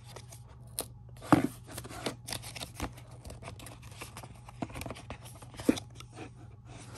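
Paper and cardboard being handled: rustling, scraping and scattered taps as the documentation packet is taken out of the MacBook Pro box's cardboard tray, with one sharper knock about a second and a half in.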